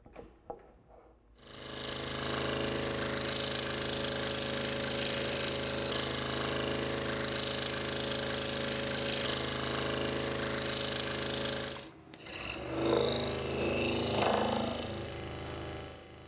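Hawk G4 precision scroll saw starting up about a second and a half in and running steadily as its reciprocating blade cuts a tilted circular coil in a wooden blank. About twelve seconds in the sound drops out for a moment, then the saw is heard again, less even.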